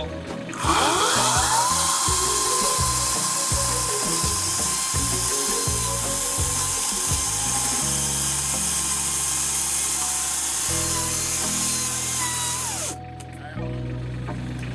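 Chainsaw revving up and running at a steady high speed for about twelve seconds, then dropping off near the end.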